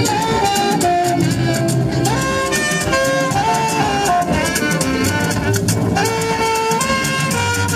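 Saxophone playing a melody of held notes with slides between them, over a backing of drums and bass.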